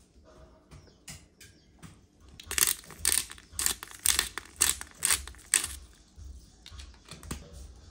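Black peppercorn grinder being twisted over raw chicken pieces: a run of quick crunchy grinding strokes, about four a second for roughly three seconds, starting a few seconds in, with a few fainter clicks before.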